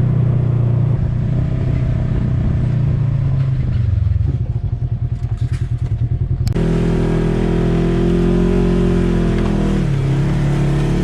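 Polaris off-road vehicle engine running under load with no one talking; the engine note wavers rapidly for a couple of seconds partway through, then changes abruptly to a steadier, different pitch about six and a half seconds in.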